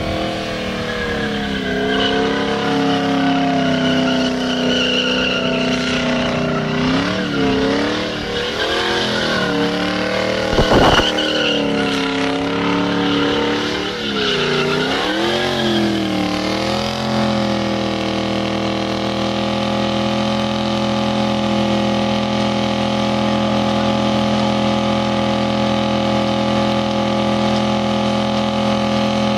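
Audi S6's 4.2-litre V8 screaming at high revs through a burnout, its tyres spinning in the smoke. For the first half the revs rise and dip repeatedly, with a brief thump about eleven seconds in. Then the engine is held at a steady high rev to the end.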